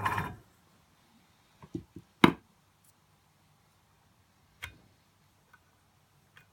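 Foxhunter AS186 airbrush compressor and airbrush hissing steadily with compressed air, then cutting off about half a second in. A few short knocks and clicks follow, the loudest about two seconds in.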